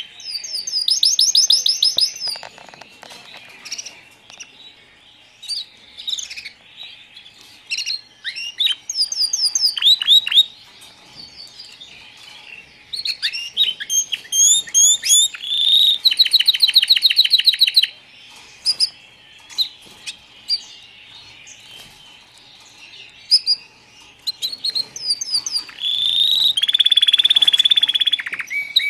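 Domestic canary song: loud runs of very fast repeated notes, each trill lasting one to two seconds, with short chirps and whistled notes between them. The longest trills come near the start, a little past the middle, and near the end.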